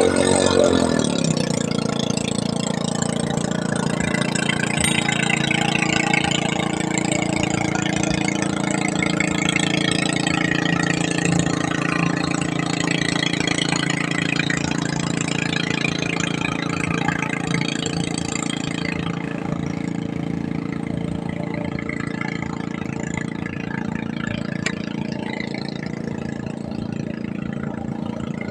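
An engine running steadily at an even idle, its pitch dipping and rising briefly near the start.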